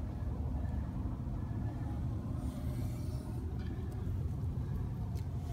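Steady low rumble, with a brief soft hiss about two and a half seconds in.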